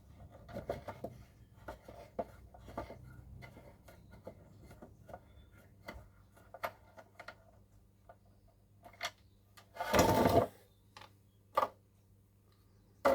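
A slot car and its box being handled: scattered light clicks and rustles, with a louder half-second scrape about ten seconds in and a few sharp clicks near the end.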